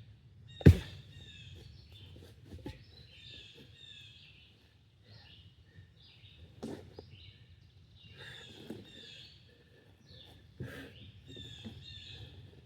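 An axe striking wood: one loud sharp chop about a second in, then lighter knocks every couple of seconds. Small birds chirp throughout.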